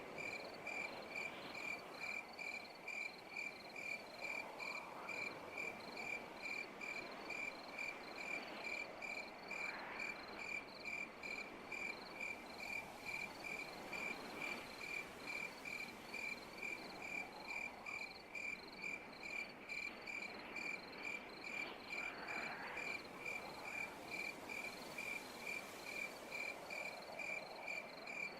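A cricket chirping steadily in an even rhythm, about two high-pitched chirps a second, over a soft hiss that swells and fades.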